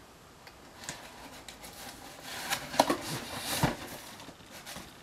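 A cardboard box being handled: rustling and scraping of cardboard, with a few sharp knocks about two and a half to three and a half seconds in.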